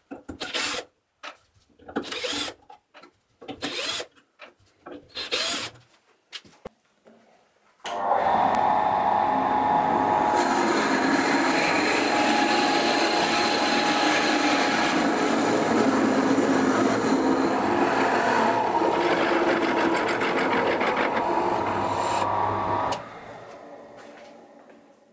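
A cordless drill drives screws through a faceplate into a wooden lathe blank in about four short bursts. Then the lathe runs while a Forstner bit bores into the end of the spinning blank, a steady cutting noise for about fifteen seconds that stops suddenly near the end and fades away.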